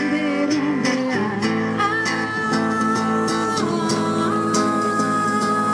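A woman singing long, held notes while strumming an acoustic guitar in a steady rhythm.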